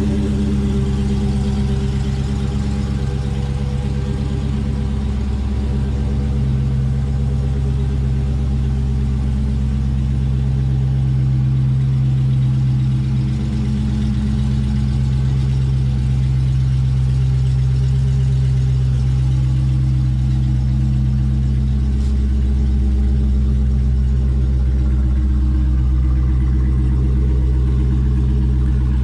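Dodge Charger SRT Hellcat's supercharged 6.2-litre HEMI V8 idling steadily after a cold start.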